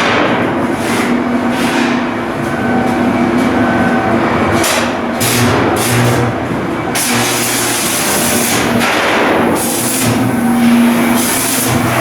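Loud shipyard work noise: a steady machinery hum under repeated short bursts of clattering and hissing.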